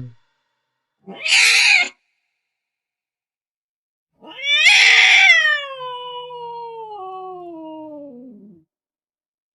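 Angry domestic cat calling twice: a short harsh call about a second in, then a long drawn-out meow that starts loud and slides steadily down in pitch as it fades.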